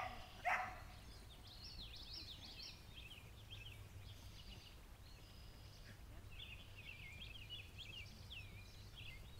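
Songbird singing in two phrases of rapid high chirps, over a steady low outdoor rumble. A single short, loud call is heard about half a second in.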